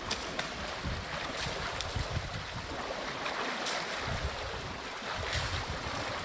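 Water sloshing and splashing as a herd of African elephants wade and drink, with a few sharper splashes. Wind buffets the microphone.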